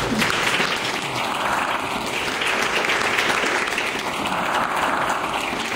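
An audience in a hall applauding steadily, many hands clapping at once.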